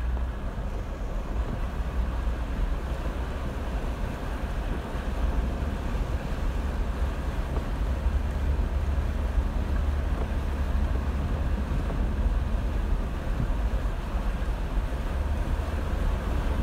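Jeep Wrangler JKU driving through floodwater over a road: a steady low rumble from the vehicle, with water rushing and splashing around the wheels.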